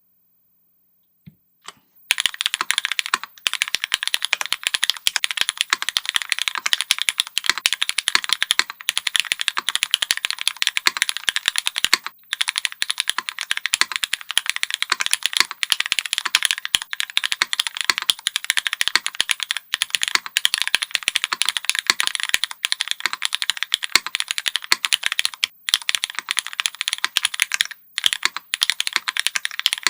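Fast typing on a Keycult No.2 TKL custom mechanical keyboard with Cherry MX2A Black switches, an aluminium plate and no foam, a clacky build. After a couple of single clicks it starts about two seconds in as a dense stream of keystrokes, broken by a few short pauses.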